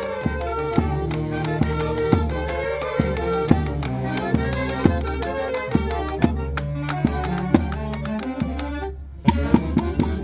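Instrumental Peruvian folk music by a band: a held melody line over regular drum strikes, with a brief break about nine seconds in before a quick run of drum hits.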